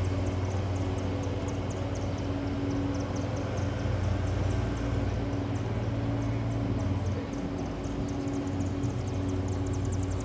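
A steady low engine drone, easing a little about seven seconds in, with faint rapid ticking high above it.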